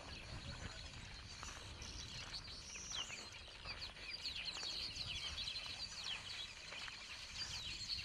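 A colony of weaver birds calling at their nests: many overlapping chirps and twitters run on continuously, over a low background rumble.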